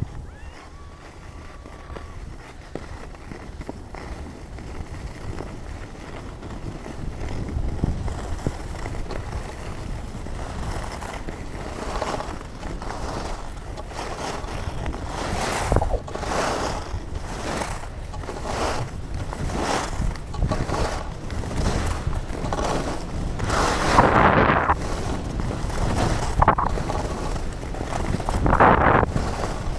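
Alpine skis carving over groomed snow, each turn a scraping swish, coming every second or two and getting louder from about ten seconds in. Under it, a low wind rumble on the action camera's microphone.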